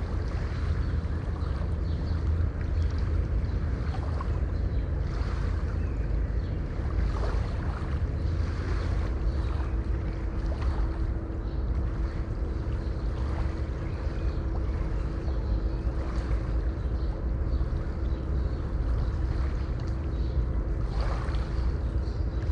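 Distant sea waves breaking on the shore: a steady, low rumble of surf. A faint steady hum comes in about nine seconds in.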